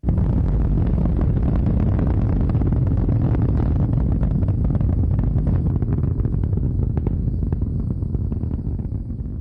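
Rocket engine sound effect for an animated upper stage igniting in space: a sudden loud start into a steady, crackling rumble that eases slightly near the end.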